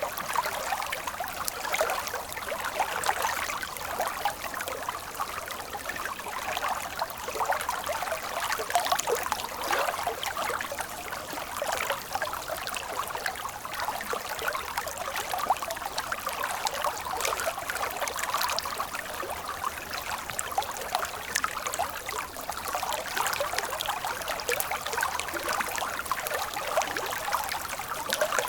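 Water of a stream trickling and splashing steadily over its bed, a light, bright flow with no deep rumble.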